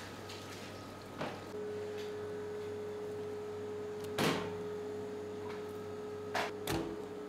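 A few short wet knocks and thuds of trout and plastic fish crates being handled, the loudest about four seconds in. Under them a steady hum tone comes in about one and a half seconds in and keeps going.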